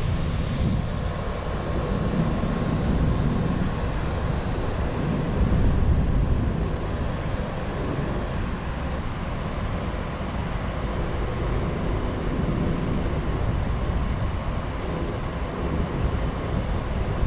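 Steady low rushing rumble of river water pouring over a dam, swelling slightly about six seconds in.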